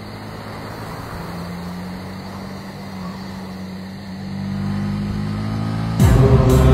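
Motor scooter engine running steadily as it rides, getting louder about four and a half seconds in. About six seconds in, a loud burst of music cuts in abruptly.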